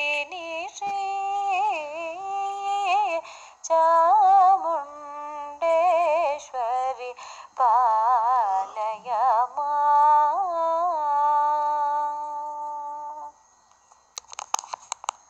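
A woman singing the closing phrases of a devotional song to Sri Chamundeshwari, her notes wavering and gliding in pitch, ending on a long held note that fades out. A quick cluster of clicks follows near the end.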